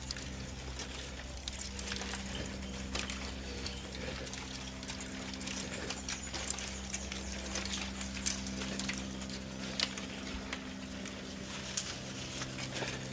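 Scattered rustles and light knocks of debris being cleared by hand, over a steady low hum.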